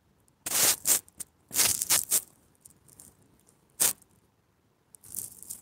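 Handling noise on a phone: four short rubbing scrapes against the microphone, the third one brief and sharp.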